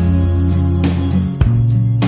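Background music: an instrumental stretch of a song with guitar over held bass notes and drum hits, no singing.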